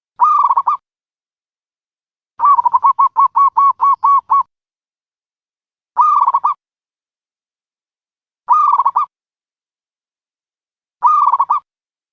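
Recorded dove calls played as a trapping lure: short, identical calls repeating about every two and a half seconds, with one run of about nine quick, evenly spaced notes about two seconds in.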